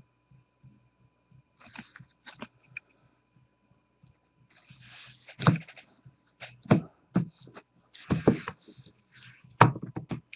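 Hands handling a card in a hard plastic holder and sealed trading-card boxes on a cloth-covered table: scattered sharp clicks and knocks, with a couple of brief rustles.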